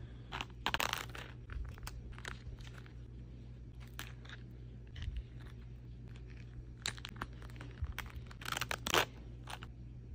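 Faint handling of a makeup-sponge set's cardboard box and plastic case: scattered crinkles, rustles and small clicks, loudest about a second in and again near the end, over a low steady hum.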